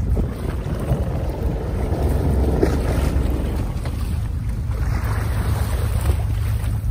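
Fishing boat under way: a steady low engine drone with wind buffeting the microphone.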